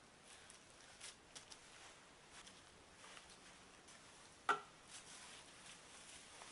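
Faint crinkling of plastic cling wrap and rustling of disposable gloves as soft dough is handled, with one sharp knock about four and a half seconds in.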